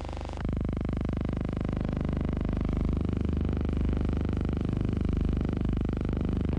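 A steady low buzzing hum with many overtones, growing louder about half a second in and then holding even.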